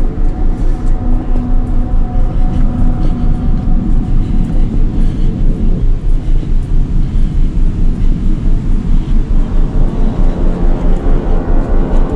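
Background music: a dark, low droning synth pad with a fast, even pulsing bass.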